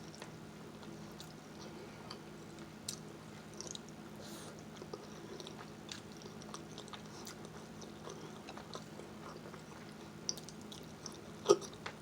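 Close-up chewing and eating: scattered small wet clicks and smacks of a mouth working on food, with one sharper click near the end, over a steady low hum.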